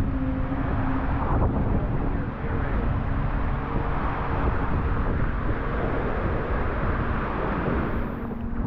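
Steady rushing roar of the Seljalandsfoss waterfall, a dense even noise heavy in the low end.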